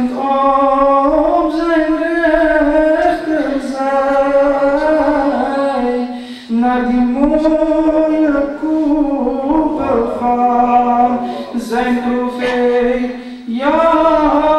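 A man reciting a naat in Dutch, unaccompanied: one male voice singing long, held, gliding phrases, with short breaths about six and a half and thirteen and a half seconds in.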